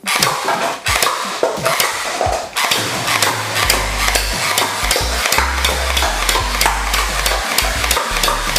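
Battery-powered automatic M16A4 toy gel-ball rifle firing continuously: its motor-driven mechanism makes a rapid, even run of clicks.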